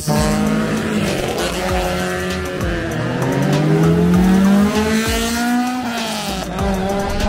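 Rally cars' engines revving hard as they race past, the pitch climbing as each car accelerates and dropping at the gear changes. The longest climb ends about six seconds in.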